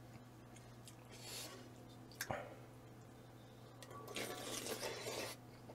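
Quiet eating from a pot of ramen broth: a spoon clicks once against the pot a little over two seconds in, then, from about four seconds in, a second or so of wet, liquid noise from the broth.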